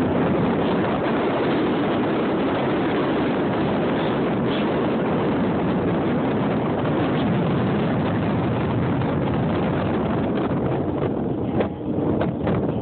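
Steady rushing noise of wind and water, with wind buffeting the phone's microphone. Near the end it becomes uneven, with a few knocks.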